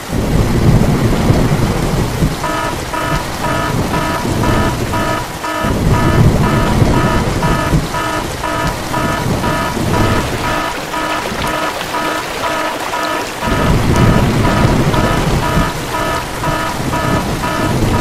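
Rain sound effect: steady heavy rain with rolling thunder that swells and fades several times. A repeating beeping tone pulses over it for most of the stretch.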